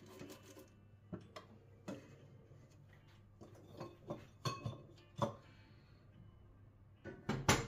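Scattered light taps and clicks of baking utensils and dishes being handled and set down on a kitchen worktop, the loudest pair near the end, over a faint steady hum.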